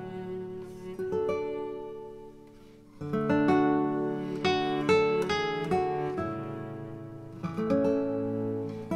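Background music on acoustic guitar: plucked notes ring out and fade until it goes quiet about three seconds in, then fuller strummed chords come in.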